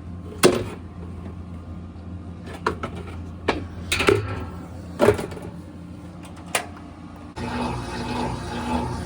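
Scattered knocks and clicks of objects being handled over a steady low hum, then about seven seconds in a steady whooshing noise with a pulsing hum switches on suddenly and keeps running.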